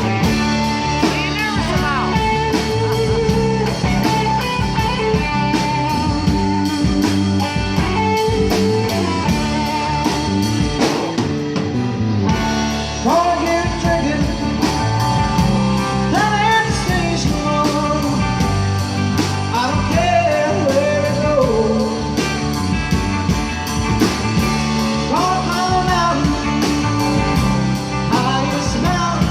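Live band playing a blues-rock song: a singer over guitar and a steady drum beat.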